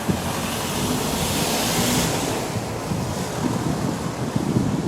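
A steady rushing hiss with wind buffeting the microphone in low gusts; the hiss swells for a moment about two seconds in.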